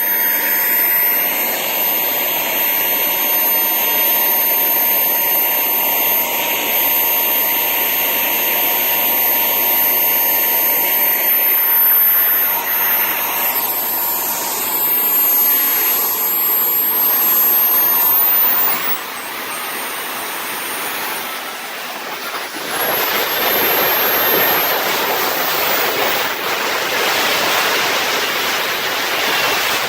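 KingTech K70G model jet turbine running on a test bench: a loud rushing blast with a high turbine whine. The whine's pitch shifts as the throttle is moved, and the sound drops for a few seconds past the middle before spooling back up.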